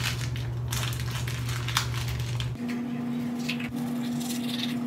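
Teeth being brushed with a manual toothbrush: irregular scrubbing strokes of the bristles, over a steady low hum that jumps to a higher pitch about two and a half seconds in.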